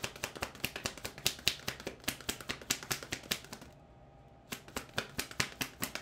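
A deck of tarot cards being shuffled hand over hand: rapid, sharp card clicks at several per second, stopping briefly a little past the middle before going on.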